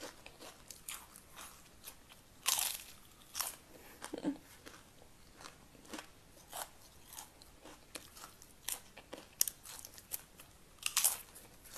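A person biting into and chewing thick fried potato chips: crisp crunches at irregular intervals, the loudest about two and a half seconds in and again near the end.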